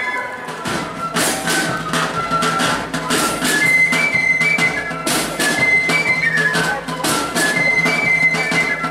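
A Foot Guards corps of drums playing a march: flutes carry a high melody over a steady beat of side drums and a bass drum.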